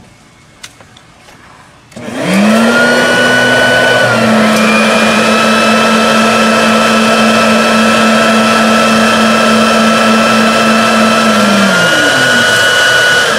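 Electric leaf blower-vacuums switched on about two seconds in, quickly spinning up to a loud, steady, high motor whine, then beginning to wind down near the end.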